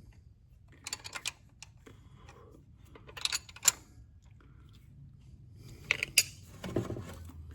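Scattered metallic clicks and taps of hand tools working on the rocker arms of a Case 770 diesel engine's valve train during valve clearance adjustment, in small clusters about a second in, around three and a half seconds and near six seconds.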